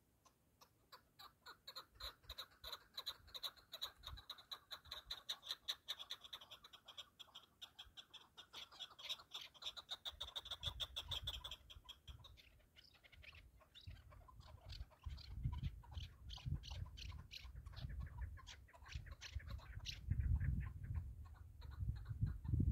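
Chukar partridge calling its chuck-chuck rally call: a long run of rapid repeated notes, about five a second, swelling in loudness, then a second run after a short break about halfway through. A low rumble comes in under the second half.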